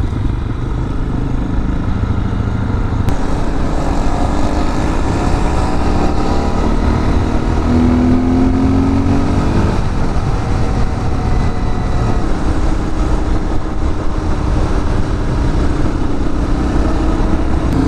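2016 Honda CRF250L's single-cylinder engine, exhaust modified, running at road speed with wind noise over it. Its note rises for several seconds from about four seconds in, drops near ten seconds, then holds steady.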